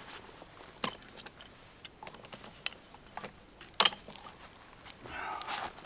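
A few scattered light clicks and knocks, like objects being handled, the sharpest nearly four seconds in. A short soft rustle follows near the end.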